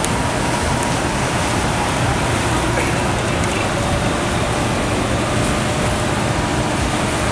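Steady wash of noise from many motorboat engines and choppy river water, heard from aboard a moving boat.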